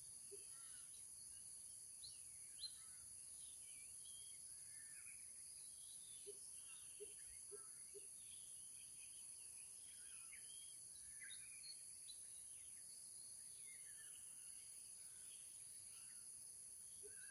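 Faint outdoor ambience: a steady high insect drone, with many small bird chirps and tweets scattered through it and a few short, low calls now and then.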